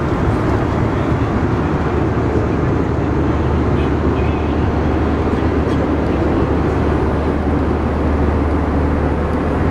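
Steady cabin drone of an Airbus A320 in cruise: engine and airflow noise with a strong low hum, even and unchanging throughout.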